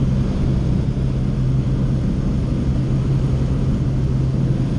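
Light propeller airplane's engine and propeller heard from inside the cabin, a loud, steady low hum with rushing noise, unchanging as the plane climbs after takeoff.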